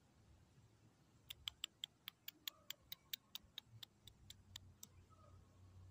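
A quick run of sharp clicks, about five a second for three and a half seconds, spacing a little wider toward the end.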